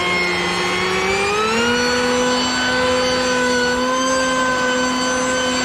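Mac Allister MBV2800 2800 W corded electric blower vac running, its motor and fan giving a steady whine. About a second in, the pitch rises as the motor speeds up, then holds steady.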